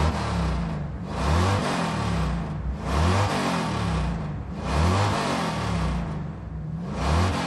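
A car engine revving hard over and over, about four or five revs, each climbing and falling in pitch.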